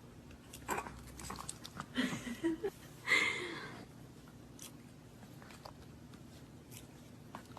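An animal chewing and crunching food, with scattered crisp bites, and a louder rustling burst about three seconds in.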